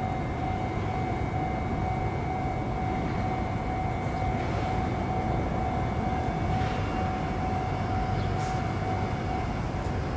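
Steady low mechanical rumble with a steady mid-pitched hum on top that fades out near the end.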